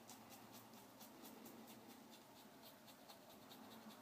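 Merkur 34C double-edge safety razor scraping through lathered stubble on the upper lip in quick short strokes, about five a second: faint, scratchy rasps.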